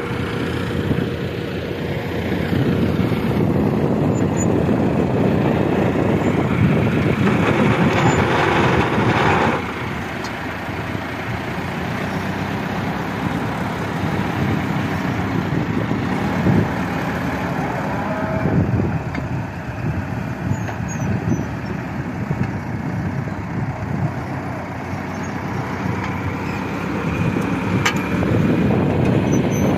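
Massey Ferguson 375 tractor's four-cylinder diesel engine running steadily under load, pulling a planter through tilled soil. A louder rushing noise comes in briefly about eight or nine seconds in.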